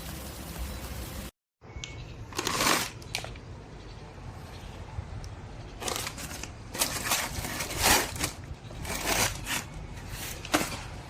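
A steady hiss, then after a short break a string of irregular rustling and crinkling handling noises, each lasting well under a second.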